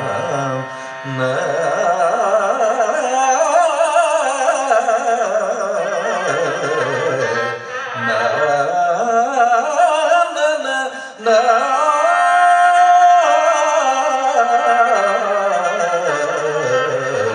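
Carnatic vocal music: a male singer sings with wide sweeping slides and ornaments on each note, accompanied by a violin. About two-thirds of the way through, he holds one note steady for about a second.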